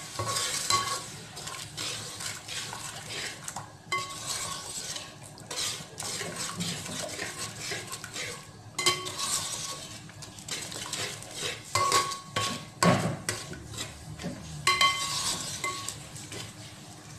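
Slotted metal spatula stirring and scraping curry sauce in an aluminium pot, with a ringing clink of metal on the pot every few seconds.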